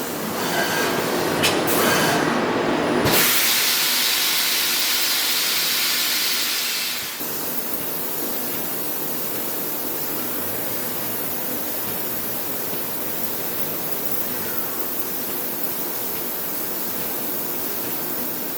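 Lathe turning A6061 aluminium under semi-dry mist lubrication: a steady hiss of the air-oil mist spray over the running machine. About three seconds in the hiss turns abruptly brighter and louder, and after about seven seconds it settles to a steady, lower hiss.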